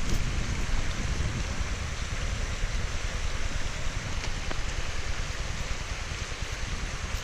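Mountain stream water rushing steadily, with wind buffeting the microphone in a low fluttering rumble.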